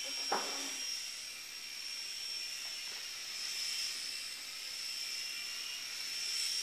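Blade mCX micro coaxial RC helicopter in flight: a steady high-pitched whine from its small electric motors and twin rotors, wavering slightly in pitch.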